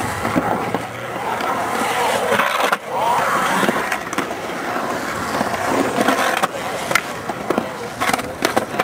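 Skateboard wheels rolling over the concrete of a skatepark bowl, with sharp clacks of the board and trucks, several of them near the end.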